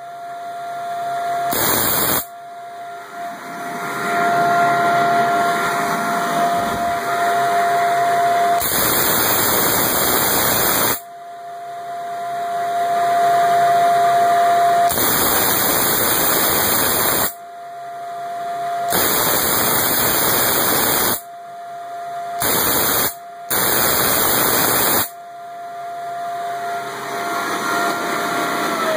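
Homemade spark-gap Tesla coil firing in runs of a few seconds, each a loud buzzing crackle of arcs, about six runs in all. Between the runs a steady whine carries on, and near the end it starts to fall in pitch as the coil winds down.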